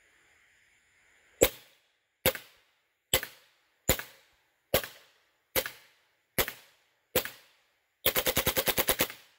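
SMG .22 fully automatic air rifle firing pellets: a string of eight single shots a little under a second apart, then a rapid full-auto burst of about ten shots a second near the end.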